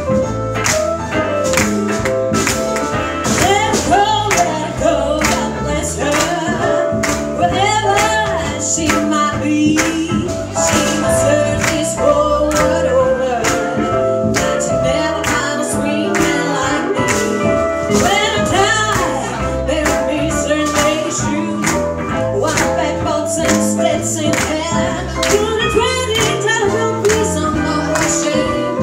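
Live band music: a woman singing into a microphone over electric guitars, a drum kit and keyboard, with a steady beat.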